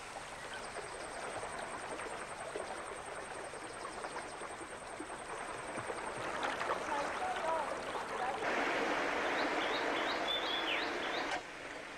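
A small stream running and splashing over rocks in little falls, with a few short bird chirps. The water grows louder for about three seconds near the end, then cuts off suddenly.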